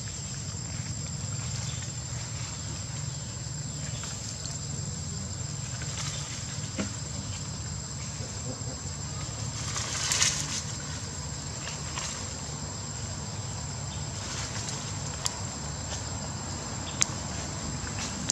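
Outdoor ambience: a steady high-pitched insect drone over a low steady hum, with a brief louder noise about ten seconds in and a few sharp clicks near the end.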